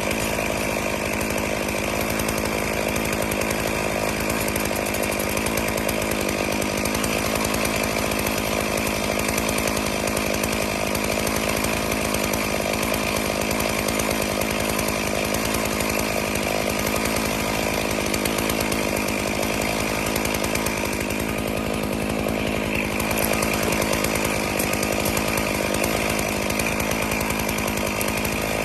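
Stihl MS461 two-stroke chainsaw on an Alaskan chainsaw mill, running steadily at full throttle under load as it rips a cedar log lengthwise into slabs.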